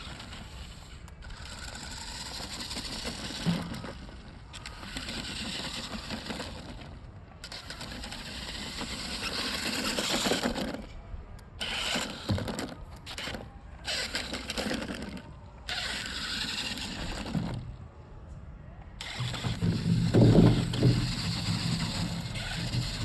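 Radio-controlled toy monster truck running over the ground, its motor whirring and its wheels scrabbling, in a string of short runs that cut off abruptly. The loudest, lower humming stretch comes near the end.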